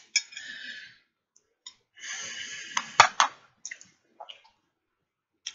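Close-up eating noises of someone chewing pork ribs: wet smacking with sharp clicks, in two short spells with scattered small clicks after.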